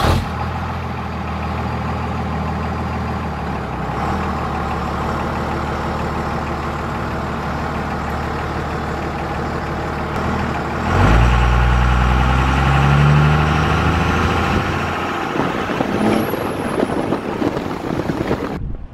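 24-valve Cummins diesel pickup driving along at a steady engine note, then growing louder with rising pitch about eleven seconds in as it accelerates, easing off after a few seconds.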